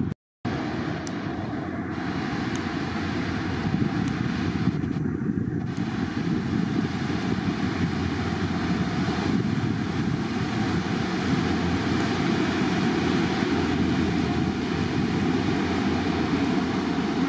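A fast pilot boat running at speed: engine drone mixed with the rush of its bow wave and wake. The sound is a steady, loud rushing that starts after a brief dropout and grows slowly louder as the boat comes close.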